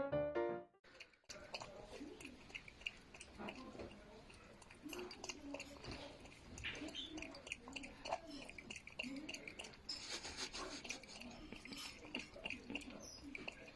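A raccoon lapping water from a glass mug with its tongue: faint, irregular wet licks and clicks.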